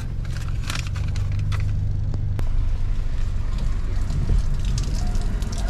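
Steady low rumble of a car's engine idling, heard from inside the cabin, with scattered raindrop ticks on the car mostly in the first two seconds.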